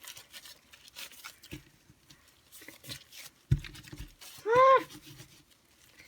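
Sticky slime being kneaded and squished by gloved hands, with small wet clicks and crackles. There is a soft thump about three and a half seconds in, and a short high squeal that rises and falls about a second later, the loudest sound.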